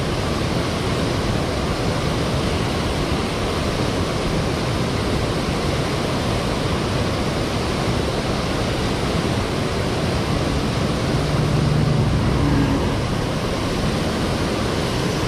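Water rushing steadily over a canal spillway, an even, loud rush with no breaks.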